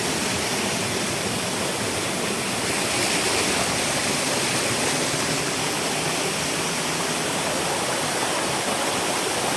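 Waterfall crashing, a steady, dense rush of falling water.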